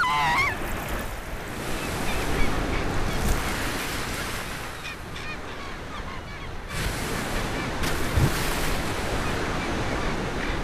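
A killer whale's whistle gliding down in pitch, fading out about half a second in, over a steady wash of sea noise. From about seven seconds in, surf breaking on the beach grows louder and brighter.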